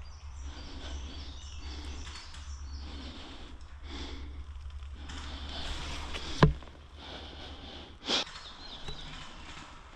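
Footsteps and rustling of a person moving through woodland, with a low rumble of movement on the microphone. A single sharp knock comes about six and a half seconds in, and a short burst of rustling or scraping about a second and a half later.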